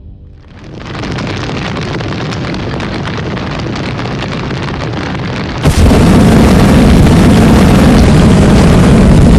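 A loud, steady rushing roar with no tone to it. About six seconds in it jumps abruptly louder and deeper.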